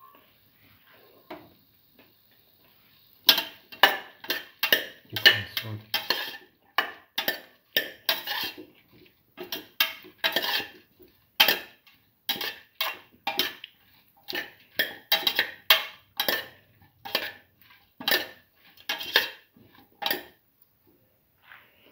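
Spoon scraping and clanking against a cooking pot while a mixture is stirred and sautéed, in quick irregular strokes about twice a second, starting about three seconds in and stopping shortly before the end.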